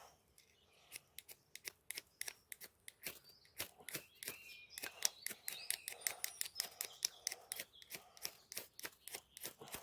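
Fire steel (ferrocerium rod) struck over and over with a scraper, a quick run of sharp scraping strokes at roughly two to four a second, starting about a second in. The sparks are being thrown onto tinder that has not yet caught.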